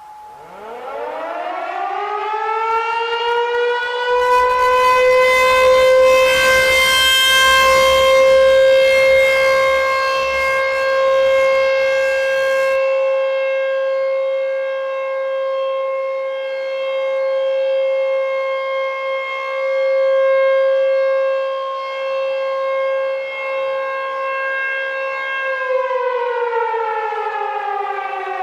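T-128 civil defense siren winding up, rising in pitch over the first few seconds, then sounding a long steady tone. A rushing noise overlies the tone from about four seconds in until about thirteen. Near the end the siren winds down, its pitch falling.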